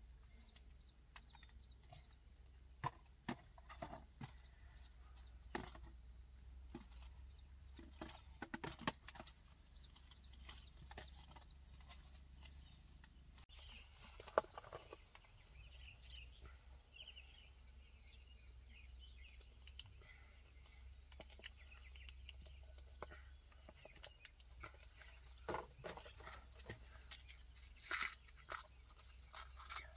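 Quiet handling of plastic drink bottles: scattered clicks, knocks and crinkles as string is tied around their necks. Faint bird chirps come in now and then.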